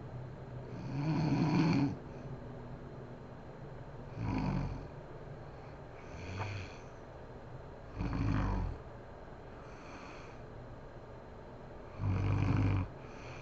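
A sleeping woman snoring: a run of separate snores a few seconds apart, the first about a second in the loudest, over a steady low hiss.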